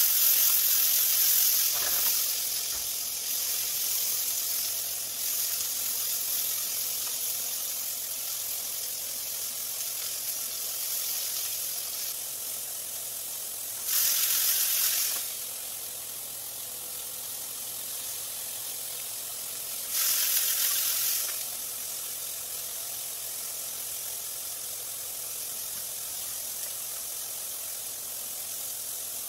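Diced meat sizzling in a hot frying pan: a steady frying hiss, loudest at the start, with two louder surges of sizzle, each lasting about a second, halfway through and again about six seconds later.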